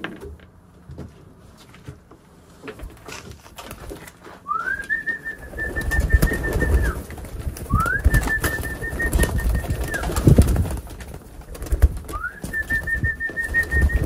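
Homing pigeons cooing, with wings flapping close by. A high whistle sounds three times, each rising, holding for about two seconds, then dropping.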